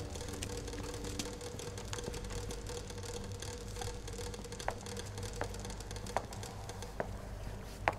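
Footsteps on brick pavement over a low steady hum, the steps clicking about once every three-quarters of a second and growing plainer in the second half.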